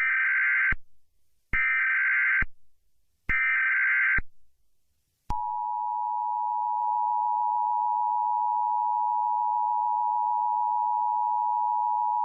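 Emergency Alert System tones: three short bursts of warbling digital header tones (the SAME data bursts), then, about five seconds in, the steady two-tone EAS attention signal begins and holds.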